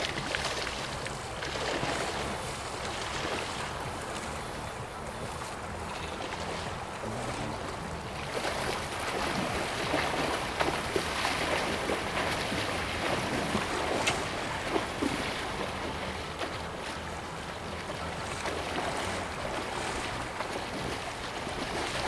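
Wind buffeting the microphone over the steady rush of a shallow creek, with irregular splashing from wading through the water from about eight seconds in.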